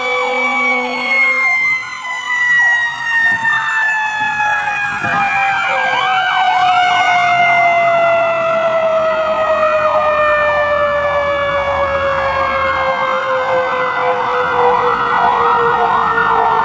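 Fire engine sirens: one winds slowly down in a long falling wail while a second yelps rapidly over it. A horn sounds in short blasts that stop about a second in.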